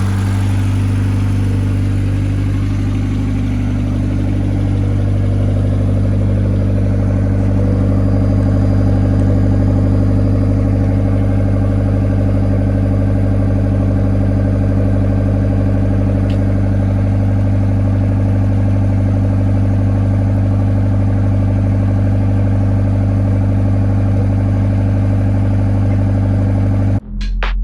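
Ford Escort Cosworth engine running steadily at a constant speed, cut off abruptly near the end by a burst of music.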